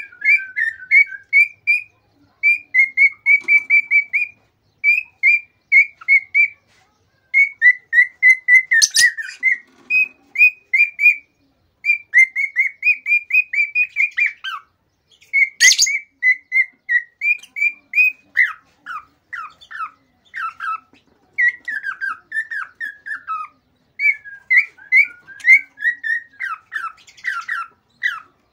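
Male cockatiel singing an excited courtship song: rapid runs of short whistled chirps with brief pauses between runs, the notes turning into downward-slurred whistles in the second half. Two sharp clicks stand out, about a third of the way in and just past halfway.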